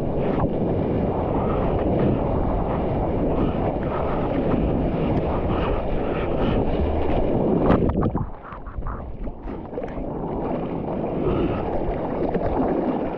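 Water rushing and splashing around a surfboard, with wind buffeting the GoPro's microphone. There is a loud splash just before eight seconds. After it the rush drops and breaks into separate smaller splashes, which build again near the end.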